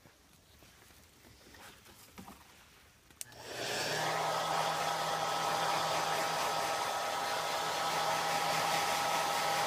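Faint rustling, then a click about three seconds in as a hair dryer is switched on. It comes up to speed within half a second and runs steady, an even rush of air with a constant hum.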